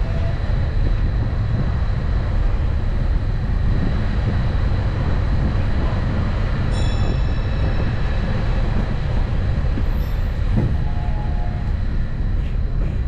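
Steady low rumble of a moving tourist road train, heard on board, with a brief high metallic ring about seven seconds in.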